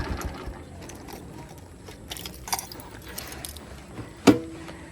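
Motorcycle engine cuts off, then light, scattered metallic clinks and rattles, with one short, louder sound about four seconds in.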